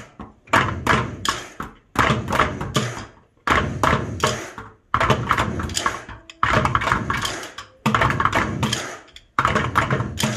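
A group of children drumming on upturned plastic buckets with sticks: sharp hollow strikes come in quick rhythmic groups, a new group about every one and a half seconds, each one dying away before the next.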